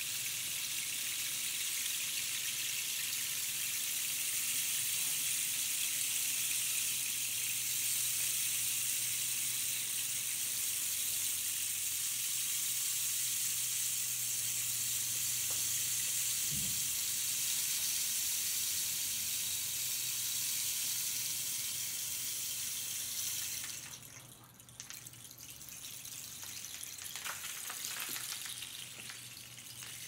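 Long rainstick held upright, its filling trickling down through the tube in a steady rain-like hiss. About three-quarters of the way through the flow thins out and ends in a few scattered ticks as the last pieces fall.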